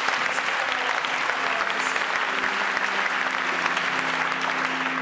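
A church congregation and worship band clapping their hands together in sustained applause, many hands at once. A faint low steady note comes in underneath about two seconds in.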